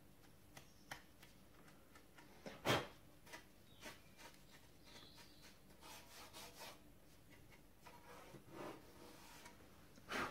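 Faint scraping and rubbing of a gloved hand working inside a metal socket back box in a plaster wall, with scattered small clicks and one sharp knock about three seconds in. Near the end comes a short, louder puff of breath blown into the box.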